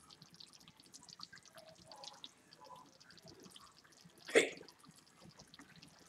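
Thick sloppy joe meat sauce simmering in a pot, giving faint scattered pops and blips of bursting bubbles. About four seconds in, one short, louder burst of noise.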